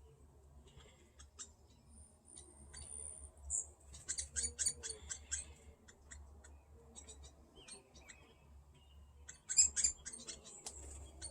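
Fledgling woodpecker chattering: quick runs of sharp, high chips, bunched about four seconds in and again near the end. These are the begging calls of a young bird being fed by its parent, which the owner takes for hairy woodpeckers.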